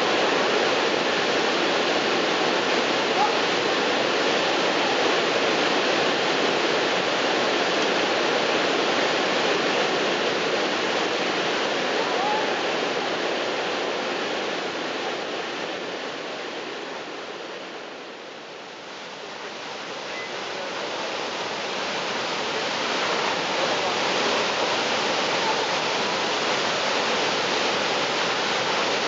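Steady rushing of the American Falls at Niagara, a large volume of water plunging over the brink onto the rocks below. The rush fades down about two-thirds of the way through and swells back a few seconds later.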